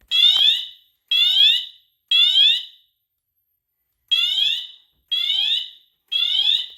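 Fire alarm sounding in the temporal-three evacuation pattern: three loud beeps about a second apart, a pause of about a second and a half, then three more, each beep rising slightly in pitch. The alarm was set off by a magnet test of an ESL smoke detector.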